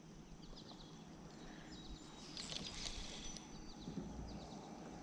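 Faint bird chirps, short high calls repeating every second or so, over quiet outdoor ambience.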